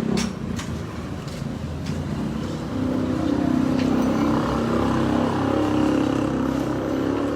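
A car engine running with a few sharp clicks early on; about three seconds in it gets louder and holds there, as when it is revved or the car pulls away.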